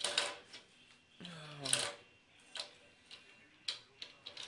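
A wooden toy train is pushed along a wooden track, giving a string of sharp clicks and knocks as it passes over the track joints and bumps the table. About a second in there is a short sound that falls in pitch.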